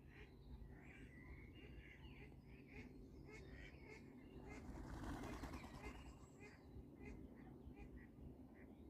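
Greylag goose goslings peeping: many short, high, faint chirps in quick irregular succession, with a brief rush of noise about five seconds in.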